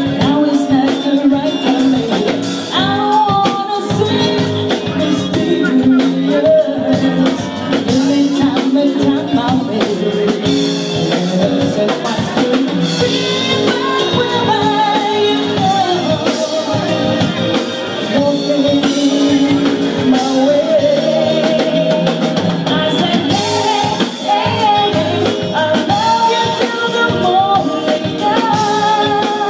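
Live band performing a song: a singer with guitar and drum kit, amplified through the club's PA.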